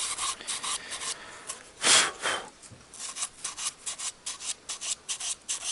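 Scraping and rubbing strokes while the GAZelle's heater fan motor is being cleaned by hand: a longer, louder scrape about two seconds in, then quick, even strokes about four a second.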